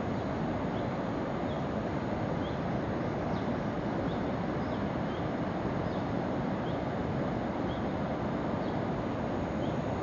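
Steady rushing of a distant mountain river down in the gorge, with a small bird giving short high chirps about once a second.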